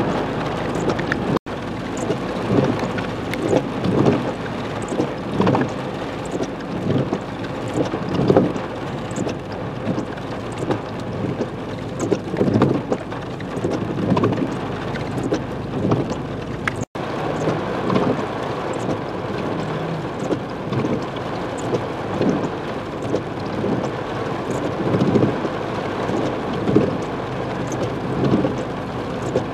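Heavy rain hitting a car's roof and windshield, heard from inside the car: a steady wash of noise packed with dense, irregular drop strikes. It drops out briefly twice, about a second and a half in and again about halfway through.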